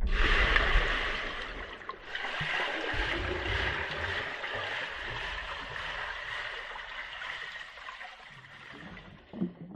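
Underwater water-noise sound effect: a steady rush of churning water, starting abruptly, with a brief dip about two seconds in.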